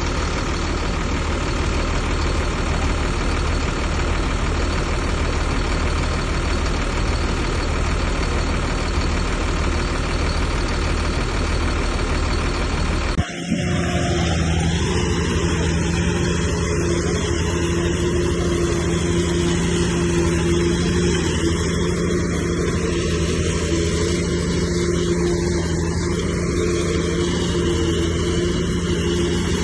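Heavy diesel construction machinery running steadily. About 13 seconds in the sound cuts abruptly to another stretch of engine noise with a steadier hum.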